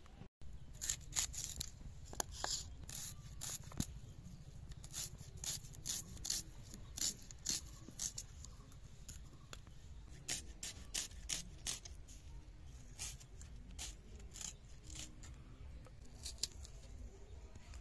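A knife cutting and peeling red onions held in the hand: irregular short crisp cuts and skin tearing, about one or two a second.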